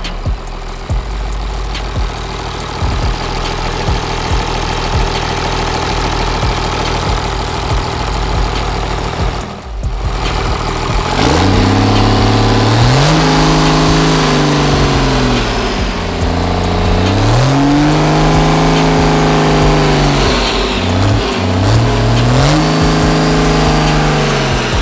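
6.7-litre Cummins turbo-diesel inline-six on an engine stand idling steadily, then revved by hand throttle three times from about halfway through. Each rev is held for a few seconds before dropping back.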